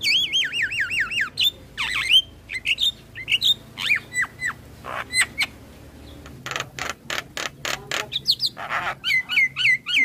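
Javan myna singing a varied song. It opens with a fast run of looping whistles that fall in pitch, then goes on with mixed whistles and short chirps. Harsh rasping calls come past the middle, and more looping whistles near the end.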